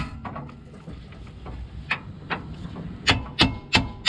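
Sharp knocks of a hammer on metal as a steering rack is worked into place: a few faint taps at first, then blows at about three a second from about two seconds in.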